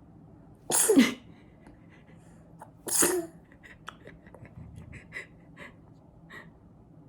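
Two sharp sneezes about two seconds apart, the kind that eating yogurt sets off, followed by a few seconds of faint small clicks.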